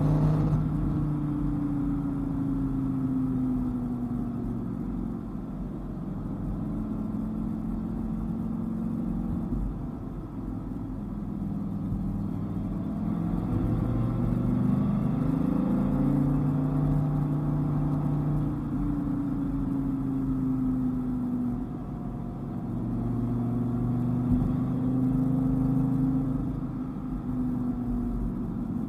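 Dodge Viper GTS's V10 engine running under way, its pitch climbing and falling several times as the car speeds up and eases off.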